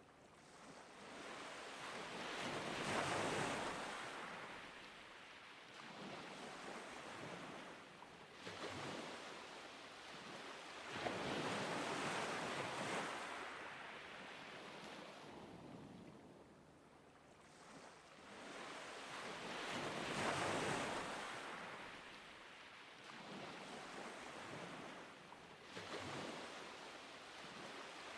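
Ocean waves washing in and drawing back, each swell rising and fading over about eight seconds, four times.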